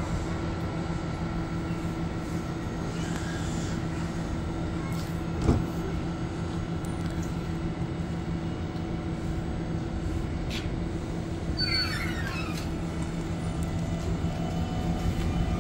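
Electric commuter train standing at the platform with a steady electrical hum. Its doors shut with a single thump about five seconds in, and a rising whine begins near the end.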